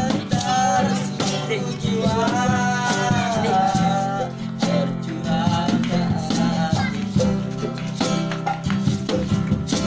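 Acoustic guitar strummed with cajon and shaker beats, and a voice singing over them: one long phrase, then a shorter one about halfway through.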